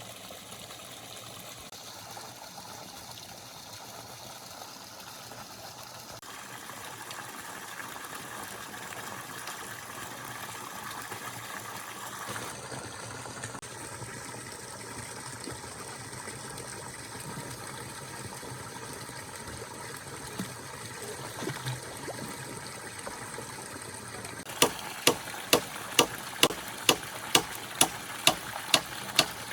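Steady rushing background noise, then near the end a run of sharp, evenly spaced strikes, about two a second, the loudest sound here: a hand tool repeatedly hitting something during the building work.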